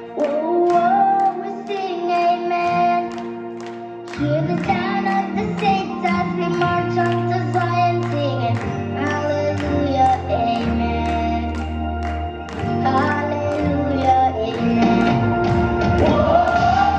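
Upbeat worship-pop song playing with a steady beat and a melody line of held, gliding notes; a deep bass line comes in about four seconds in.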